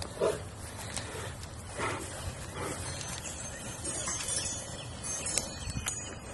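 Liger giving a few short, low grunts as it walks, spaced irregularly about a second apart.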